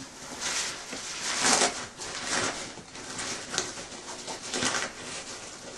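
Nylon fabric of an avalanche airbag backpack rustling and swishing under the hands as it is handled, in a series of brushing strokes.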